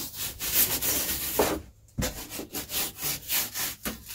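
Japanese pull saw cutting insulation along the base of a wall: one long stroke, then a run of quick short strokes, about three a second.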